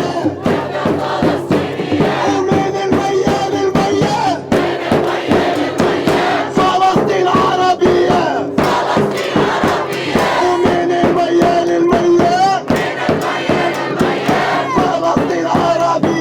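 A crowd of protesters chanting in unison in a sung, melodic call with long held notes, over a fast, steady rhythm of sharp beats.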